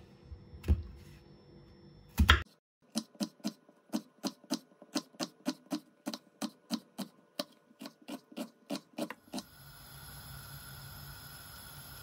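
Kitchen knife finely chopping an onion on a cutting board: quick, even strokes, about four a second, for some six seconds, after one louder knock. The chopping then gives way to a steady hiss.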